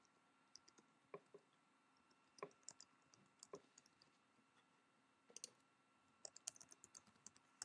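Faint clicking of computer keyboard keys being typed, in short runs with pauses between, the keystrokes coming thickest near the end.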